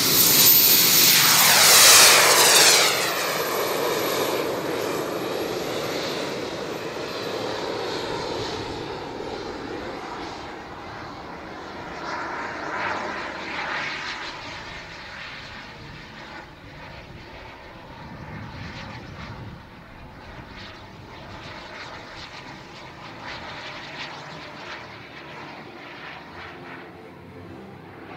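Jet turbines of two large-scale RC BAE Hawk models in Red Arrows livery, running at take-off power in a formation take-off. A loud whine with a rushing roar drops in pitch as they pass, about two seconds in, then fades steadily as they climb away.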